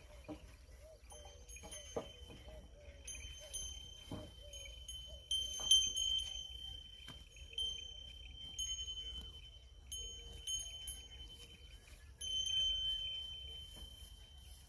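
Small bells worn by plough bulls ringing with a clear high tone, struck again every second or two in an uneven rhythm as the animals move.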